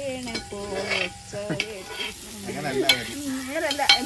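A voice singing a Malayalam song without accompaniment, in held, wavering notes, over a faint sizzle of food frying with a few clicks.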